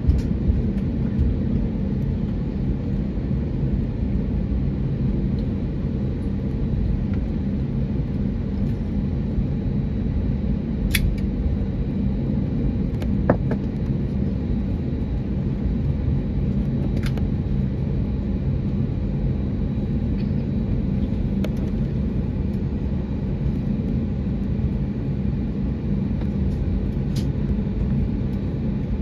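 Steady low rumble inside an Airbus A320's cabin as it taxis, with the engines running at an even, low power and a few faint clicks.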